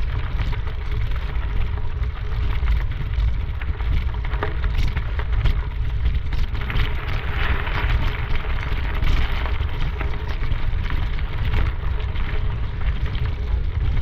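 Steady rumbling wind noise on a moving camera's microphone, over an even hiss with a few scattered sharp ticks from movement along the trail.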